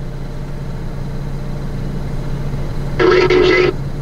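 CB radio picking up long-distance skip on channel 19: a steady low hum, then about three seconds in a brief burst of a distant voice through the radio's small speaker, thin and cut off at top and bottom.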